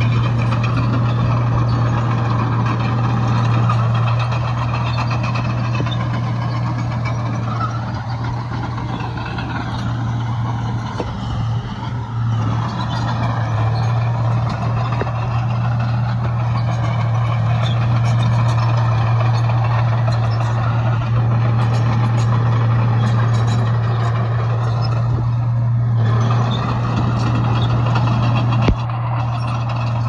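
Heavy earth-moving machine's diesel engine running steadily with a strong low drone, and a single sharp click near the end.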